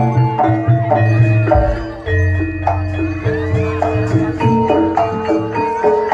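Live jaranan music from a gamelan-style ensemble: metallophones play a quick, stepping melody over drum strokes. The drums drop out briefly about two seconds in.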